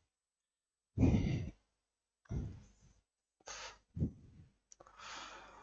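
A man's breathing close to a headset microphone: a few short sighing breaths in and out, about a second apart.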